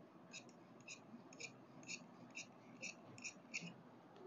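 Tailor's scissors cutting blouse fabric along a chalk line, a quick run of short snips about two a second that stops a little before the end.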